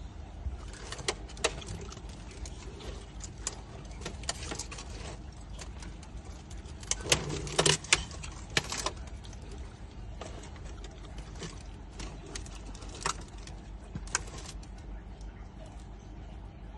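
Impressed tortoise feeding: scattered crisp clicks and crunches as it bites and tears at stringy food, with a denser run of crunches about seven to nine seconds in, over a steady low rumble.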